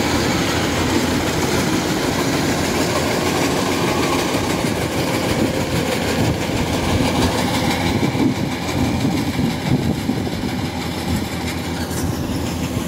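Kubota DC-105X crawler combine harvester running under load while it cuts and threshes rice: a steady, dense engine-and-machinery clatter with the rattle of its tracks. It thins a little in the second half as the machine moves away.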